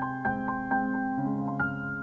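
Background piano music: slow single notes struck one after another, the last one about one and a half seconds in left ringing.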